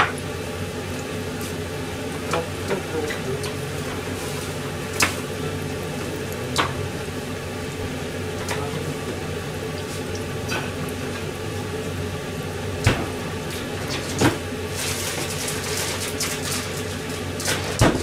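Food deep-frying in a pot of hot oil: a steady bubbling sizzle broken by occasional sharp pops, with the crackle growing denser near the end.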